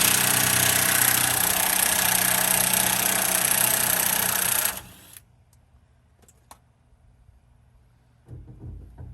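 Power wrench running steadily for nearly five seconds to undo a nut, then cutting off suddenly, followed by a few light clicks and a short low knock near the end.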